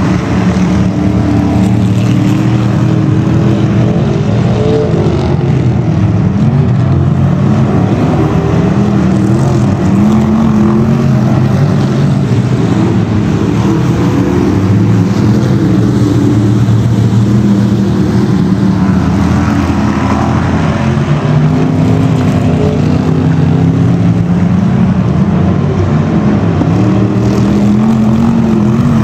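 Engines of several Bomber-class stock cars racing together, loud and continuous. Their overlapping pitches rise and fall as the cars accelerate and back off through the turns.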